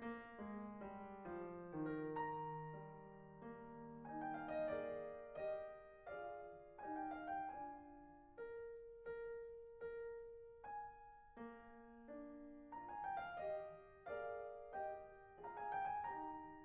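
Background solo piano music, single notes and chords struck one after another at an unhurried pace.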